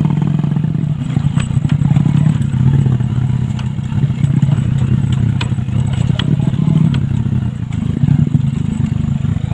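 Motorcycle engine running steadily while riding a rough trail, with scattered rattling clicks from the bike over bumps.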